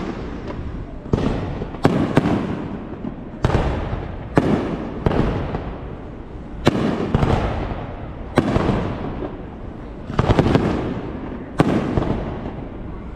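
Aerial fireworks bursting: about ten sharp bangs at irregular intervals of one to two seconds, each followed by a rumble that dies away.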